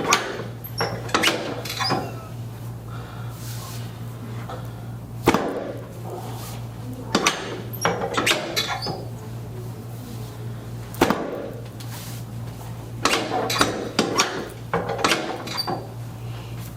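Sharp knocks and cracks from a chiropractic spinal adjustment, about a dozen spread irregularly, some in quick pairs, over a steady low hum.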